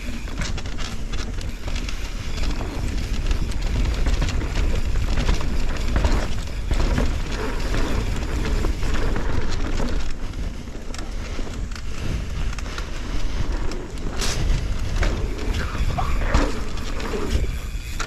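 Mountain bike descending a forest trail, heard from an action camera on the rider: steady tyre and wind rumble with frequent knocks and rattles from the bike over the rough ground. A sharp clatter comes about fourteen seconds in.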